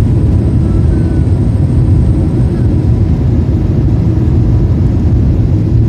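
Airplane cabin noise heard at a window seat after takeoff: the steady low rumble of the engines and rushing air.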